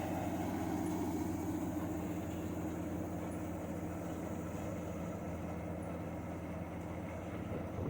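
1976 Allis-Chalmers Gleaner F combine running steadily, its engine hum under the even noise of the machine.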